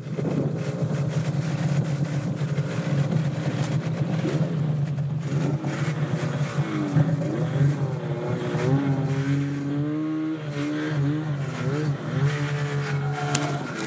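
Snowmobile engine running under way, a steady low drone with its pitch rising and falling again and again as the throttle is worked, most of all in the second half.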